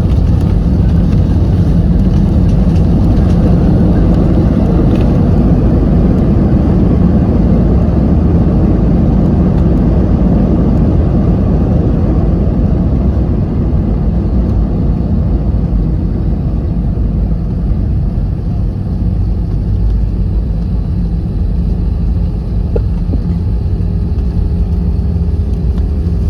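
Airliner cabin noise during landing: a loud, steady rumble of engines and rushing air that eases off a little about halfway through.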